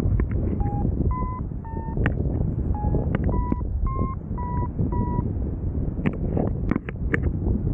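Paragliding variometer beeping in short electronic tones, about two a second, their pitch stepping up and down, the sound that signals the glider is climbing in lift. The beeps stop about five seconds in. Wind noise on the microphone with sharp crackles throughout.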